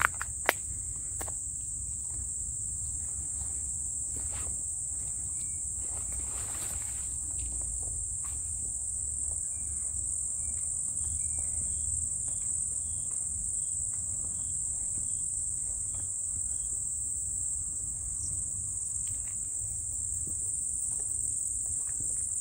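Crickets chirring in a steady, continuous high-pitched chorus. A sharp click comes just after the start, and a few faint short chirps sound in the middle.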